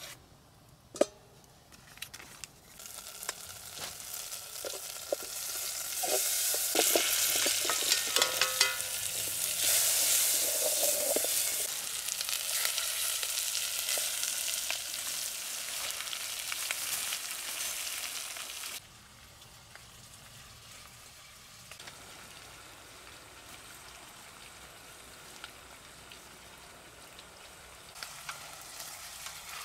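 Food frying in butter in a metal pot over a wood-burning camp stove: a sizzle that builds up and grows loud, with clinks and scrapes of a utensil stirring in the pot. About two-thirds of the way through it drops suddenly to a quieter, steady hiss.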